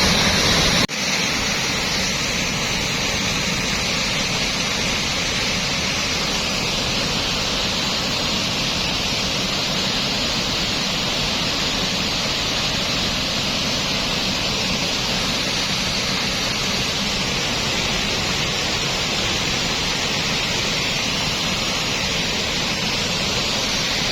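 Floodwater rushing down a swollen stream channel: a steady, loud rush of water with a brief break about a second in.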